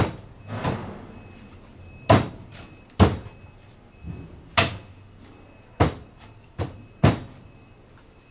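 A solid-wood table's legs knocking against the workbench as it is pressed on and rocked: about eight sharp wooden knocks at uneven intervals.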